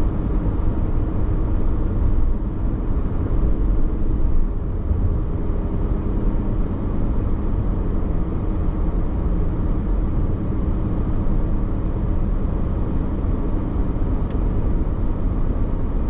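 Car driving at steady speed: an even rumble of tyres and engine with no changes or distinct events.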